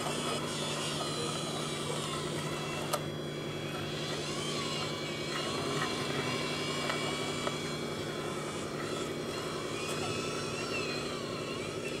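Radio-controlled scale construction trucks running: a steady low hum with a fainter higher whine that rises and falls as the model dump truck drives. A single sharp click about three seconds in.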